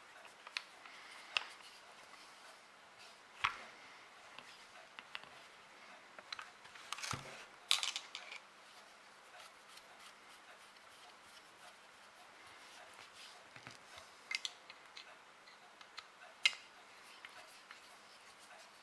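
Screwdriver working the grip-frame screws of an Uberti replica Colt 1860 Army revolver: scattered small metal clicks and taps as the blade seats in the screw heads and the steel parts knock together, with a cluster about seven to eight seconds in.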